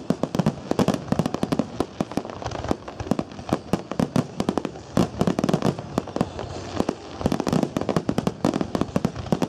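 Fireworks display: a rapid barrage of aerial shells bursting, several sharp bangs a second, with no let-up.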